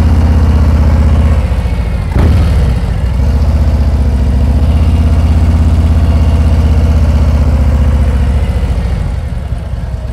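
Large touring motorcycle's V-twin engine running at low revs in first gear through a slow U-turn, the clutch slipped in the friction zone against the rear brake. The engine note dips briefly about two seconds in, then steadies and eases off near the end.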